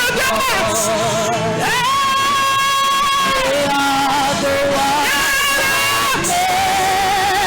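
Live gospel worship music: a singer holds long notes with a wavering vibrato over band accompaniment.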